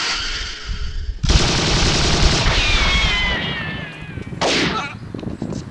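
Gunfire sound effect: a sudden loud shot or burst about a second in, dying away with a falling whine, then another sharp shot near the end.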